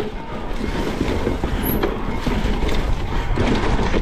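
Mountain bike riding down a rough enduro trail: tyres running over dirt and rock, with the frame and chain rattling in quick clicks and knocks, under a steady wind rumble on the action-camera microphone.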